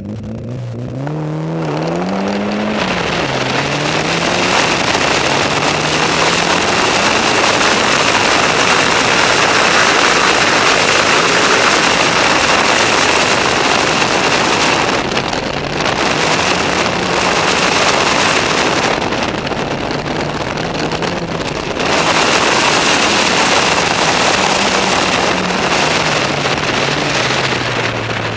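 Mitsubishi Lancer Evolution VII's turbocharged four-cylinder engine accelerating hard, its pitch rising through first gear with a shift about three seconds in. After that, loud wind and gravel noise largely covers the engine, easing briefly twice in the middle.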